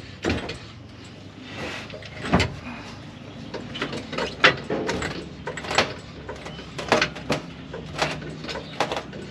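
Irregular sharp clicks and knocks of metal tools and parts being handled during work under a truck, about a dozen separate strikes spread unevenly with no steady rhythm.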